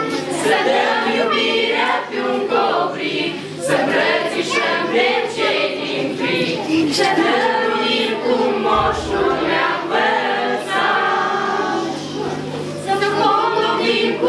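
A mixed group of teenage voices singing a Christmas carol together in Romanian.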